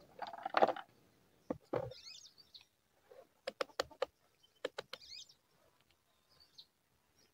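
Sharp clicks from a digital multimeter's rotary selector dial being turned to the resistance range, a quick run of clicks mid-way and three more about a second later, after a rustle of handling. A bird chirps twice in the background.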